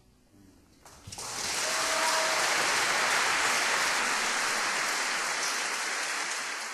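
Concert audience applauding, breaking out about a second in after a brief quiet at the end of the piece, then holding steady.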